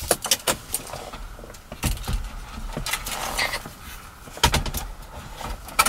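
Scattered sharp clicks and knocks, with rustling between them, from a double-DIN car stereo head unit being handled in the dash opening while its antenna cable is plugged into the back.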